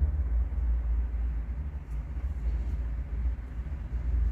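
Steady low rumble and hum with no speech.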